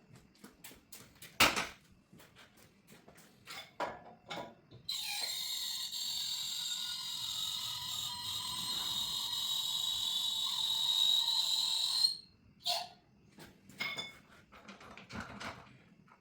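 Scattered clicks and knocks of hand tools on metal, then a power tool runs steadily for about seven seconds with a high whine over a hiss and stops abruptly, followed by a few more clicks.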